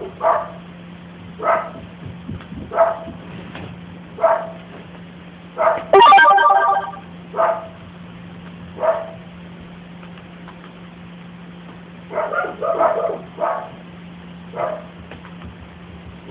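A small lapdog barking in single sharp barks every second or two, with a quick run of barks near the end. About six seconds in comes one louder, longer sound with a clear pitch, and a steady low hum runs underneath.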